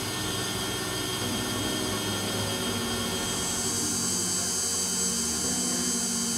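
KitchenAid stand mixer running steadily, its beater churning cake batter in a glass bowl as egg is added.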